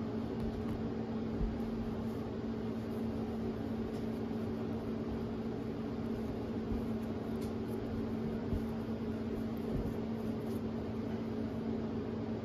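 Steady mechanical hum with a constant low tone and an even hiss, with a few faint soft bumps.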